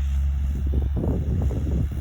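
Skid steer engine running steadily, with an uneven low rumble.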